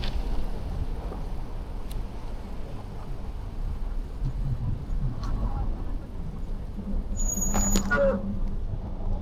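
Rolling city-street ambience heard from a bicycle in falling snow: a steady low rumble of traffic and wind on the microphone, with a few light clicks and a brief high squeak near the end.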